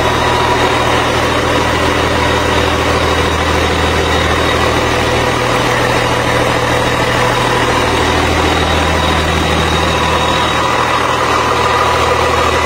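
A heavy engine running steadily at idle, an even low hum with a thin steady whine above it.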